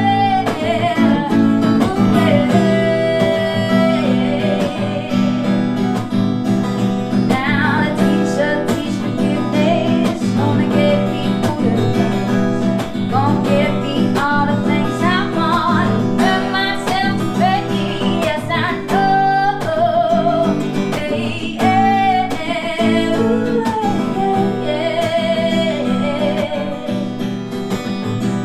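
Acoustic guitar strummed under a solo singing voice with vibrato: a live singer-songwriter song.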